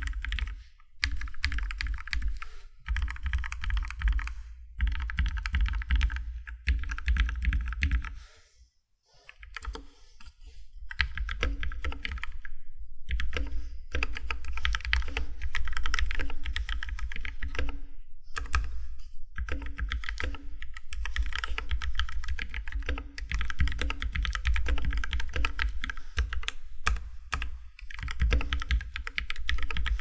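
Ducky One 2 SF mechanical keyboard fitted with Krytox 205g0-lubed Kailh Pro Burgundy linear switches, a foam liner and stabilizer pads, typed on in quick runs of keystrokes. The typing stops for about two seconds near a third of the way in, then runs on almost without a break.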